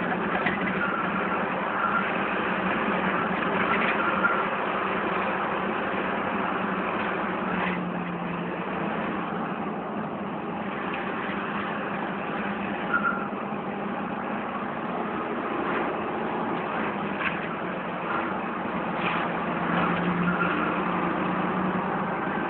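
Motor vehicle driving steadily, heard from inside the cab: a continuous engine hum and road noise, with a few brief knocks or rattles.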